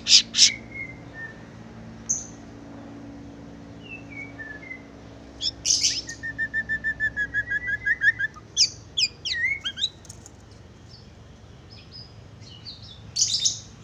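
White-rumped shama (murai batu) singing a varied song of clear whistles and sharp notes, with a fast run of repeated notes about halfway through and loud phrases near the start and end.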